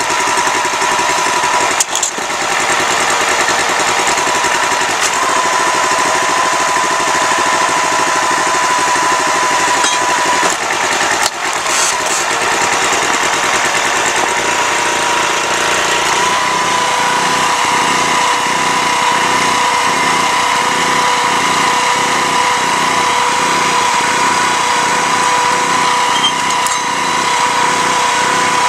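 Small gasoline engine of a hydraulic log splitter running steadily, with a couple of brief knocks along the way; from about halfway its note takes on a regular pulsing beat.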